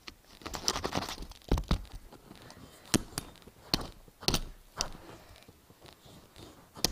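A Nokia flip phone being struck and knocked about in an attempt to break it: a series of about eight sharp, irregular knocks with some scraping and crunching near the start.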